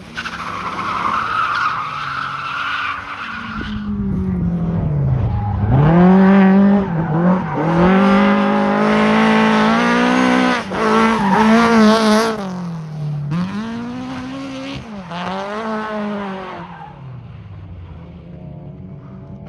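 Tyres squealing as a car slides for the first few seconds. Then a rally car's engine revs hard, its pitch climbing and dropping again and again as the driver works the throttle and gears, and it fades near the end as the car moves away.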